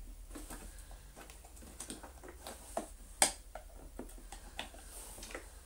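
Scattered light clicks and taps of a screwdriver and hands working on the plastic casing of a Miele C3 canister vacuum during disassembly, with one sharper click about three seconds in.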